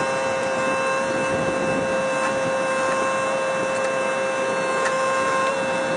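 Excavator engine and hydraulic pump running at steady high revs: a constant whine over an even mechanical rumble, without load changes.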